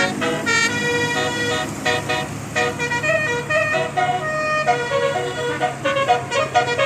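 Bus 'telolet' horn, an electronic multi-tone air horn, playing a quick melody of short stepped notes over an engine running steadily underneath.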